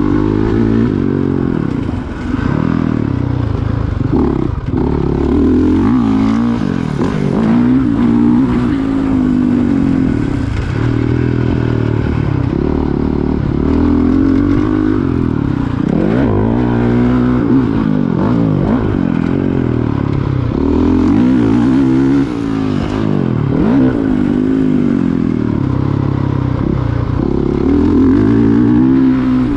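Honda CRF450R's single-cylinder four-stroke engine under hard riding, heard from on the bike, its pitch climbing and dropping again and again every second or two as the throttle is opened and chopped and the gears change.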